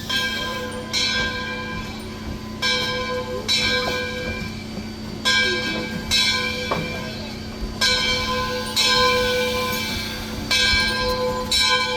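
Steam locomotive's bell ringing steadily, a clear metallic strike about once a second, each note ringing on until the next.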